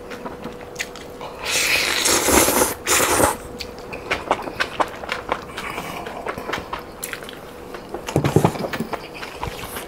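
Close-miked eating: two long, loud slurps of noodles about a second and a half in, then wet chewing with many small clicks and smacks, louder again for a moment near the end.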